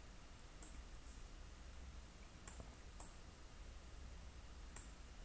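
A handful of faint computer mouse clicks at irregular intervals over a low background hiss.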